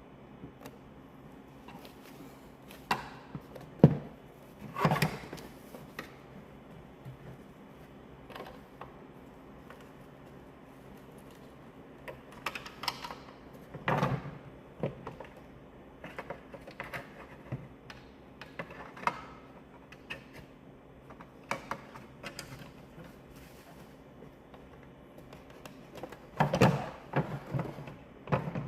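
Plastic instrument-cluster parts being handled and pressed together: scattered clicks, knocks and rustling, with a sharp click about four seconds in and a run of knocks near the end.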